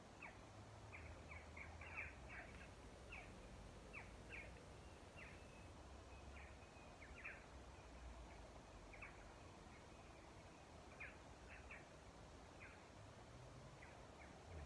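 Faint bird chirps: short, downward-sliding calls repeated irregularly, over a low background rumble.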